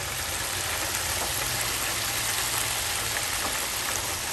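Whole flour-coated squid deep-frying in a small Winco electric deep fryer: the hot oil sizzling and bubbling steadily.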